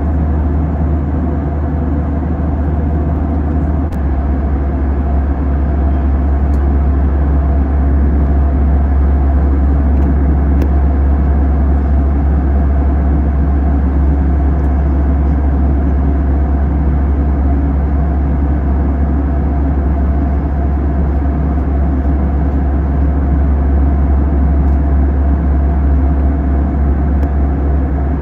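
Steady, deep drone of an Airbus A320 in flight, heard inside the passenger cabin: engine and airflow noise. About four seconds in, the low hum shifts slightly.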